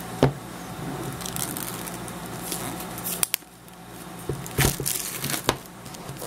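Hands handling paper and a cardboard iPad mini box on a desk: rustling and handling noise with a few sharp knocks, the loudest just after the start and two more past the middle. A faint steady hum runs underneath.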